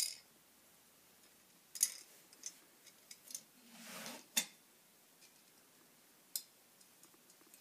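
A few light, scattered metal clicks and clinks from galvanized steel brackets (a small angle on a joist hanger) and a little screw being handled and fitted by hand, with a short scraping sound just before the sharpest click about four and a half seconds in.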